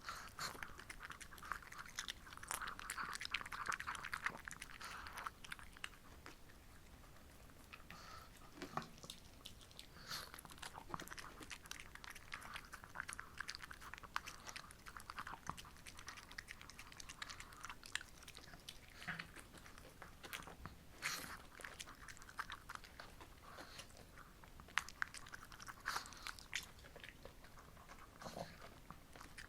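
A Shih Tzu dog chewing and crunching a homemade treat, with irregular crisp bites and crunches, closely miked; the chewing is densest for the first few seconds and then comes in scattered bites.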